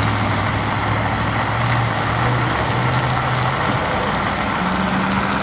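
A heavy engine, likely a fire engine's, runs steadily at the scene. Its low hum steps up in pitch about four seconds in, over a steady hiss of hose spray.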